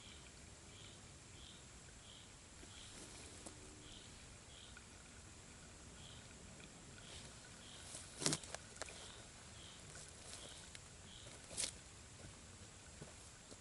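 Quiet outdoor ambience: an animal's short high chirp repeating a bit under twice a second, over a faint steady high tone. A sharp snap comes a little past the middle, and a smaller one near the end.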